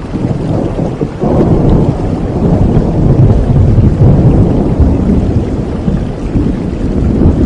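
Steady rain with a long, low rumble of thunder that swells about a second in and rolls on, easing slightly near the end.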